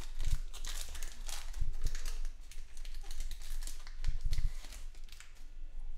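Trading cards being handled: a run of quick clicks and rustles as cards are slid and flipped through, with a few dull bumps.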